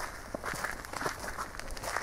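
Footsteps of a person walking along a dirt path, with small irregular crackles underfoot.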